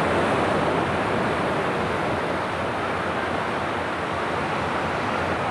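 Sea waves breaking and washing in foam over the stone steps of the shore, a steady rush of surf, with strong wind buffeting the microphone.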